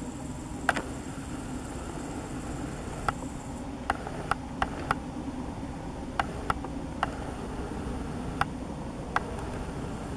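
A dozen or so sharp, short clicks at uneven intervals over a steady background hum.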